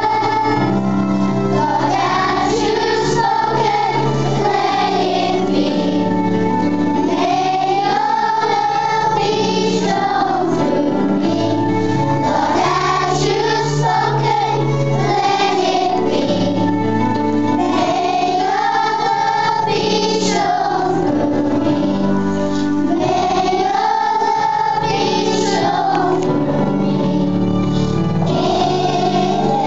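A group of young children singing a song together in unison, over an instrumental accompaniment with a steady bass line.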